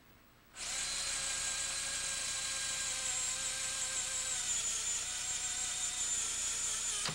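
Electric drill with a spot weld bit running, cutting a half-inch hole through the sheet steel of a car door. A steady whine starts about half a second in, its pitch sagging slightly partway through.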